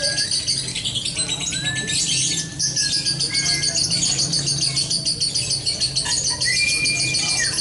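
Many caged songbirds singing at once in a bird-song contest: a dense, continuous stream of rapid high chirps, with a few long, level whistled notes over it and a low steady hum beneath.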